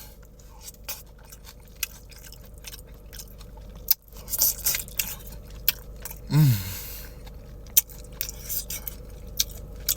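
Close-up eating sounds: wet chewing and lip smacking with many short clicks while eating a brisket burrito bowl, and a brief falling hum of approval about six seconds in.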